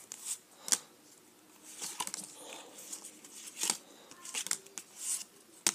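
Trading cards being handled and slid against each other in the hands: soft rustles with a few sharp flicks as cards are moved, one after another.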